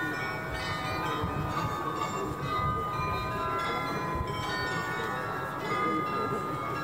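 Bells of the Munich Rathaus-Glockenspiel chiming, many ringing notes at different pitches overlapping as they sustain, over a steady low background rumble.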